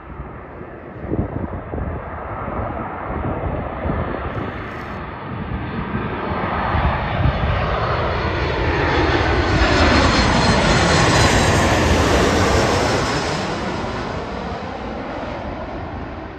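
Boeing 737 jet airliner on final approach passing low overhead: engine noise builds, is loudest around ten to thirteen seconds in, and fades as it goes away, with a whine that falls in pitch as it passes.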